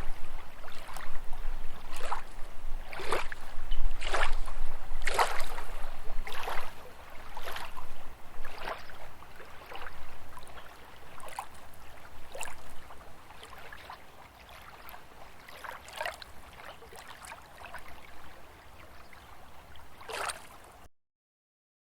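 Small lake waves lapping, an irregular splash about once a second, growing fainter after about eight seconds. The sound cuts off suddenly near the end.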